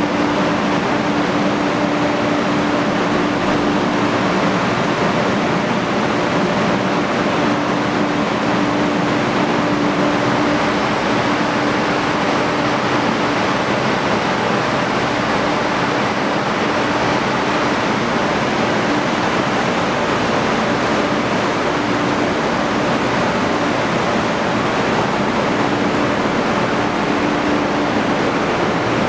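Steady rush of air-conditioning and blower fans on a standing Amtrak Acela trainset, with a constant low hum that fades in and out.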